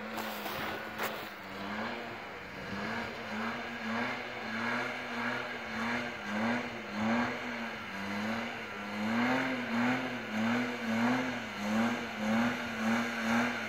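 Engine of a lifted off-road 4x4 revving up and down in quick, regular surges, about two a second, as it climbs a snowy hill.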